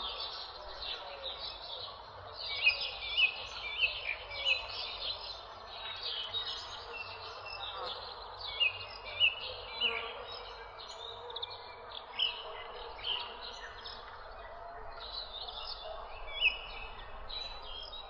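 Many songbirds chirping over each other in a dense chorus. Short, sharp, high chirps repeat again and again over a continuous wash of softer calls, with some louder chirps standing out.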